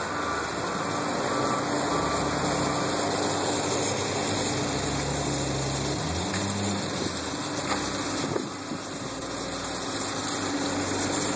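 John Deere wheel loader's diesel engine running, with its reversing beeper going for the first couple of seconds. The engine revs up about six seconds in.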